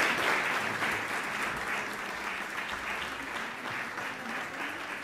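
Audience applauding, the clapping dying away gradually.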